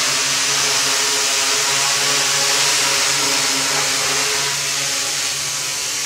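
Quadcopter with four KDA 20-28M brushless motors and 10-inch Gaui props, hovering: a steady buzzing hum of motors and props with an airy hiss, getting a little quieter near the end as it moves away.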